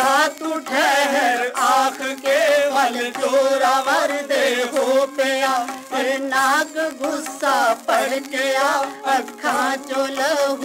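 Punjabi devotional singing played from an old Odeon vinyl record: a voice sings with a wide vibrato over a steady drone. The playback sounds thin, with no bass.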